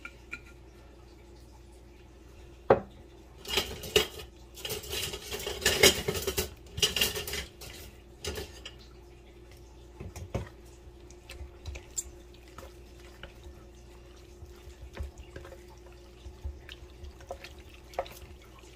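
Kitchen handling sounds: a sharp knock, then several seconds of clattering and rattling of dishes and containers, followed by scattered light clicks and taps. A faint steady hum runs underneath.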